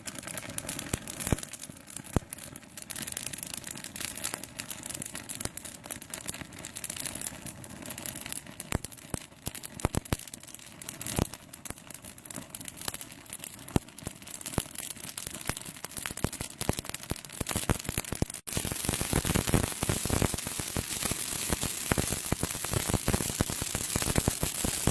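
A wreath burning, crackling with irregular small pops over a hiss of flame. About three-quarters of the way through the crackling becomes denser and louder.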